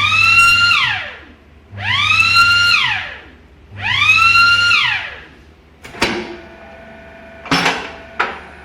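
Electronic alarm of a W315 CNC butt welding machine whooping three times, each tone rising then falling, signalling that the heating-up time is over and the heater plate must be taken off. It is followed by a few sharp knocks.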